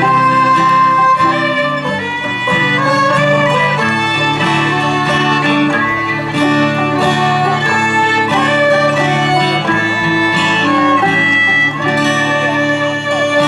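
Acoustic old-time string band playing an instrumental tune, a fiddle carrying the melody over picked guitar and banjo.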